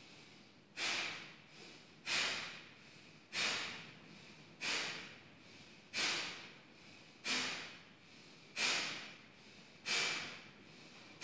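A woman doing kapalbhati breathing: about nine sharp, forced exhalations through the nose at an even pace of roughly one every 1.3 seconds. Each begins abruptly and fades, with quiet passive inhalations between.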